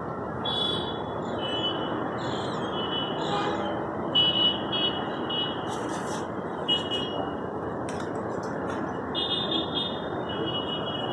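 Small birds chirping in short repeated high notes over a steady background rumble like traffic.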